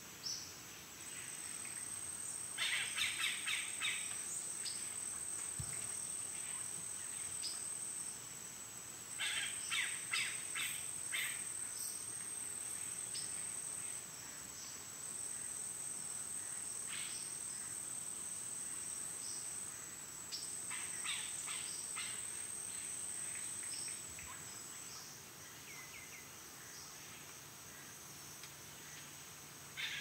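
Amazon rainforest ambience: a high, steady insect buzz that cuts in and out in long stretches and fades near the end, with birds calling in three bursts of rapid repeated notes and a few scattered single chirps.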